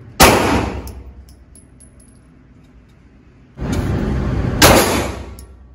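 Gunshots at a shooting range: one sharp shot near the start, then two more about a second apart later on, each followed by a long echoing decay.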